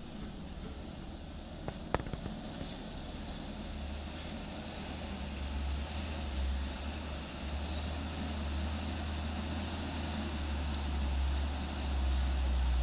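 Diesel engine of a loaded Hino dump truck running as it comes down a dirt slope, a low steady rumble that grows louder as the truck approaches. A single sharp click about two seconds in.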